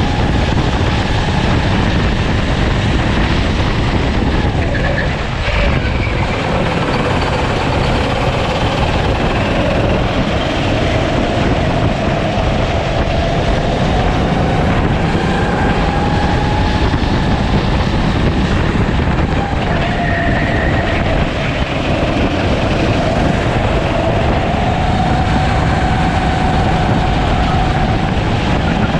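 Sodi rental kart engine at racing speed, heard onboard, its pitch climbing slowly as it accelerates and dropping back as it slows, several times over. A heavy low rumble of wind and vibration on the microphone runs under it.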